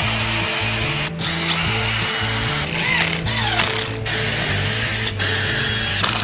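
Cordless drill drilling holes into plywood in several bursts, with short pauses and a falling whine as it spins down between holes. Background music runs underneath.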